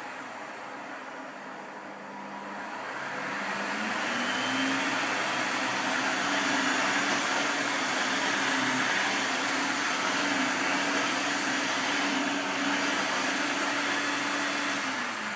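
Electrolux upright vacuum cleaner motor running. Its pitch and loudness rise a couple of seconds in as the motor speeds up, hold steady, then drop again near the end.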